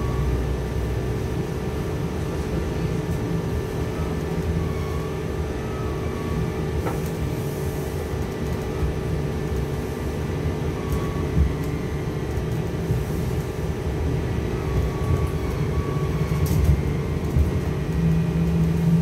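Cabin of a Trolza-5265.00 Megapolis trolleybus on the move: a steady low rumble from the ride, with a hum and a thinner whine from the electric drive that shift slightly in pitch as the speed changes.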